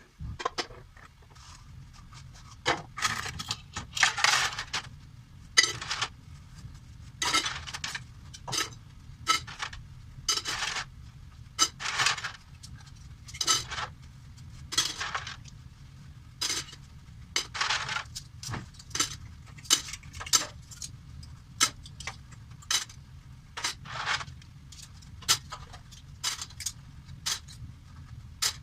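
Dishes and cutlery clinking and clattering as they are handled and washed, a sharp knock or short clatter about every second, over a steady low hum.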